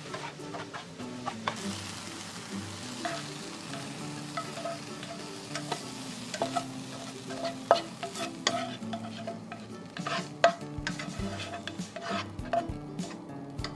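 Chicken stir-fry sizzling in a nonstick frying pan while a spatula stirs and scrapes it, with many small clicks and scrapes of the spatula on the pan. Partway through, the pan is tipped and the food is scraped out onto a plate.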